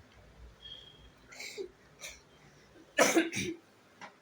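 Short vocal noises from a person, the loudest a brief burst about three seconds in.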